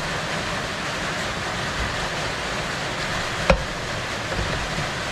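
Steady hiss with one sharp click about three and a half seconds in, from hand work on the cylinder and piston of a Husqvarna K1270 concrete saw's engine.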